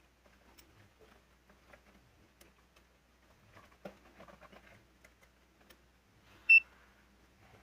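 Faint clicks and handling noises, then a single short, high electronic beep about six and a half seconds in.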